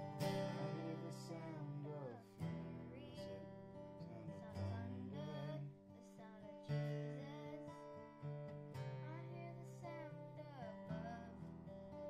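Acoustic guitar strummed in a song accompaniment, the chords changing every couple of seconds.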